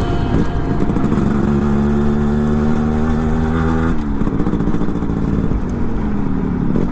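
An engine running at a steady pitch, which changes abruptly about four seconds in.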